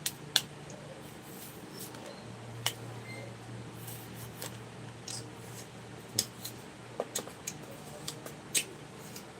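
Eating sounds: about a dozen sharp crunches and mouth clicks at irregular intervals, over a faint steady low hum.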